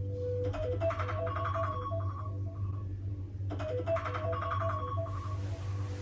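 Phone alarm ringtone playing a short melodic phrase of quick notes that repeats about every three seconds, over a steady low hum.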